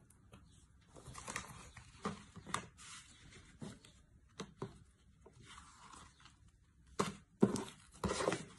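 Cardboard and paper being handled: scattered rustles and light knocks as cards and a paper slip are lifted from a cardboard shipping box, loudest in a cluster of knocks near the end.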